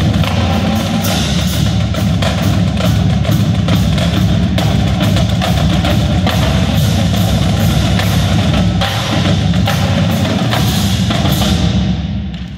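Indoor marching drumline playing at full volume: snare drums, tenor drums, a line of pitched bass drums and cymbals in a dense, driving rhythm, stopping near the end.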